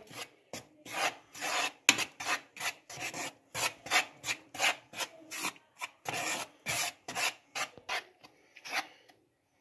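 Dry flour and spice coating mix being stirred in a bowl: rhythmic rubbing, scraping strokes, about three a second, fading out near the end.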